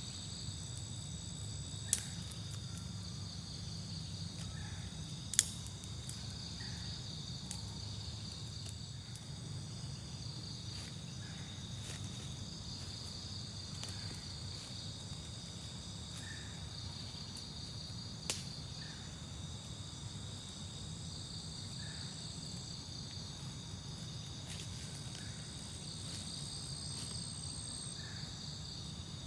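Night insects, crickets among them, trilling steadily in several high overlapping choruses over a low steady rumble. Three sharp clicks come through, about 2, 5 and 18 seconds in.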